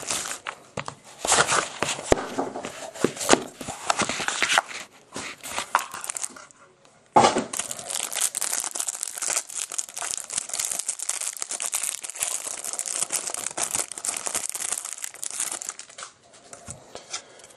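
Plastic wrapping of a sealed trading-card box being torn open and crinkled in the hands, with a short pause before a sudden, steady stretch of crinkling about seven seconds in.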